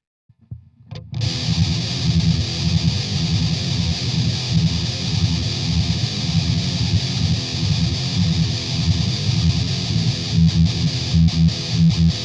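Electric guitar played through a Boss MT-2 Metal Zone distortion pedal, giving a heavy, high-gain distorted tone. It starts after about a second of silence.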